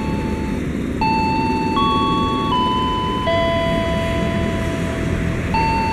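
Electronic chime playing a slow tune of held notes, each about three-quarters of a second long, stepping up and down in pitch and ending on a longer, lower note. A steady low rumble runs underneath.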